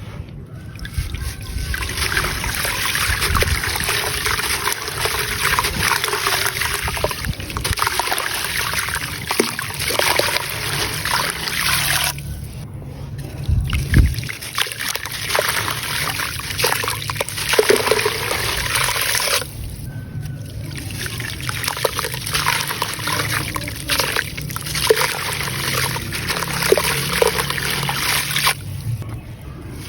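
Grainy dried sand-cement crumbling and dissolving in water in a clay pot: a continuous crackling, fizzing trickle with sharp pops, broken by three short pauses.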